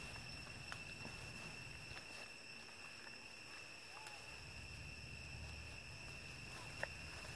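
Steady high-pitched drone of insects in the forest, with a few faint snaps and rustles of leaves and twigs as macaques move through the undergrowth.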